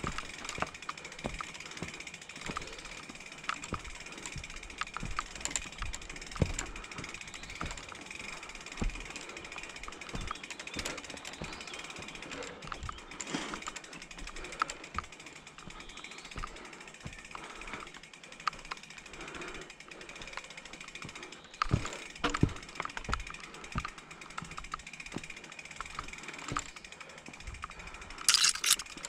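Mountain bike rolling slowly down a rough dirt trail: the rear freehub ticks while coasting, and the chain and bike rattle and knock over roots and rocks. There is a brief harsh rattle near the end.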